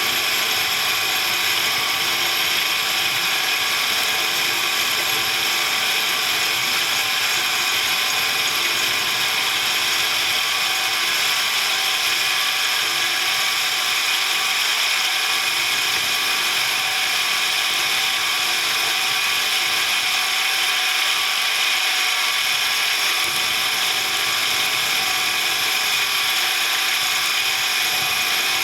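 A machine tool running steadily, its gearing giving a whine of several steady tones, while boring out the worn breather seat in a motorcycle engine's front cover.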